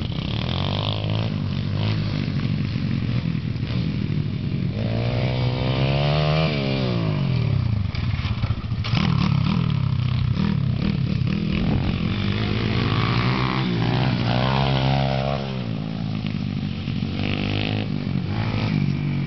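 Pit bike engine revving up and down as it is ridden around a dirt track, its pitch rising and falling with the throttle several times.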